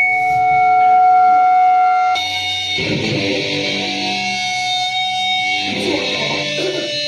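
Amplified electric guitar ringing: held notes sustain, then a new strummed chord rings out about two seconds in.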